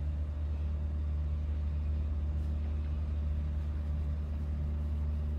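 Steady low hum with a faint even hiss above it, unchanging throughout.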